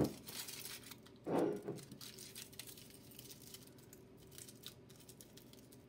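Aluminium foil and masking tape handled on a glass jar: soft crinkling and rustling with small clicks, and a short louder scrape about a second and a half in.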